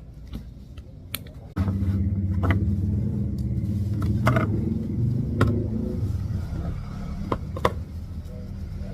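A low, steady motor hum starts abruptly about a second and a half in and keeps running, with a few sharp clicks over it.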